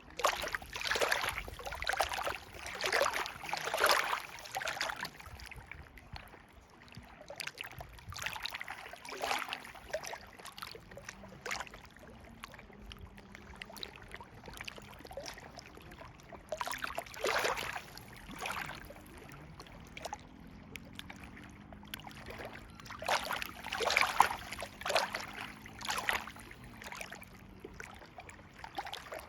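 River water rushing and splashing in uneven surges, with louder splashy bursts a second in, in the middle and near the end.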